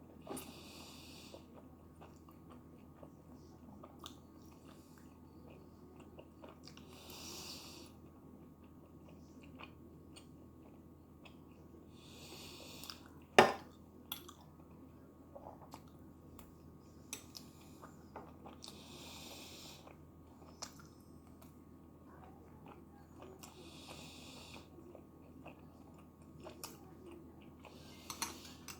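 A person chewing tteokbokki (Korean spicy rice cakes) with soft, wet mouth clicks, broken every five seconds or so by a short hissing sound of about a second. One sharp click about halfway through is the loudest sound.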